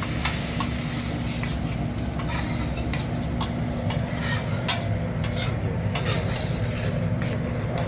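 Food sizzling on a hibachi flat-top griddle, with scattered sharp metal clicks and scrapes of the chef's spatula on the hot plate, over a steady low hum.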